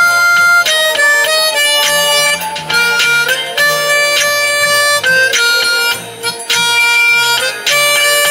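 A harmonica being played: a tune of held chords and notes, each lasting about half a second to a second.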